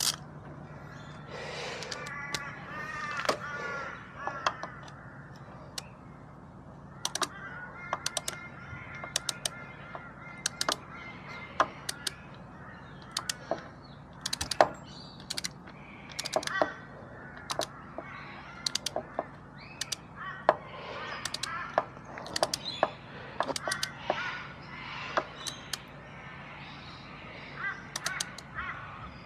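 Ratcheting torque wrench clicking in short irregular runs as bolts are tightened to 8.7 Nm, with birds calling in the background.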